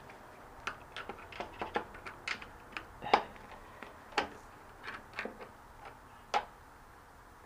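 Irregular metallic clicks and taps of a screwdriver prying at a circlip that holds the bearing of a spin exercise bike, with two louder knocks about three and six seconds in.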